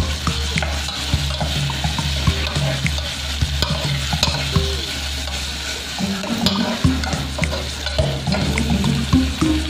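Metal spoon stirring and scraping fried fish, onions and tomatoes around an aluminium pot, with frequent small clinks against the pot over a light sizzle of the food cooking.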